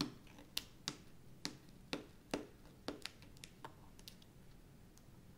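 Adhesive glue strip being peeled up from the edge of a diamond painting canvas, crackling off in about ten small, sharp, irregular clicks that stop about four seconds in.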